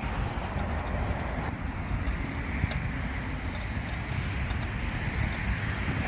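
Wind rushing over the microphone of a camera carried on a moving bicycle: a steady low rumble with a hiss above it.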